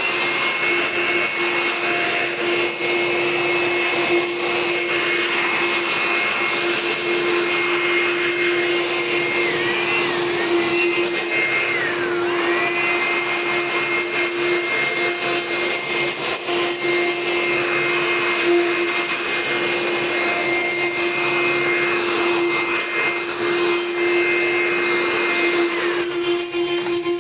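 CNC machine running: a steady high whine over a constant lower hum, the whine dipping briefly twice about ten and twelve seconds in before climbing back.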